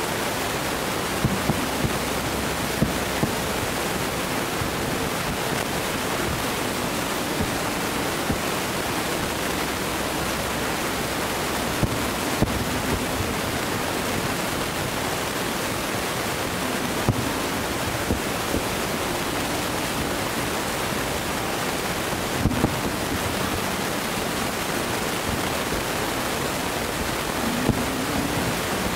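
A steady, even rushing noise, with faint short thumps every few seconds from distant aerial fireworks shells.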